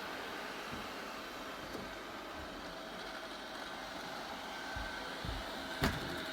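Robot vacuum cleaner running, a steady motor and suction noise with faint steady tones in it, and one sharp knock near the end.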